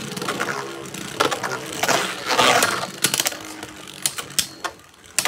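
Two Beyblade Burst spinning tops, Brave Valtryek and Salvage Valtryek, whirring and scraping around a plastic stadium, with repeated sharp clacks as they hit each other and the walls. The sound fades toward the end as the tops slow.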